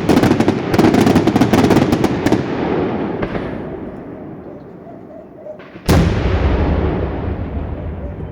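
Daytime fireworks: a rapid string of sharp reports for about two and a half seconds, fading into a rumbling echo. Then one heavy bang about six seconds in, followed by a long low rumble.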